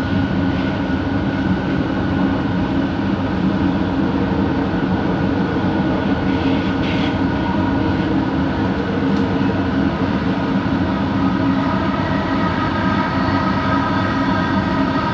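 Bombardier Innovia ART 200 train running at speed, heard from on board: a steady rumble with held hums and whines from its linear induction motors.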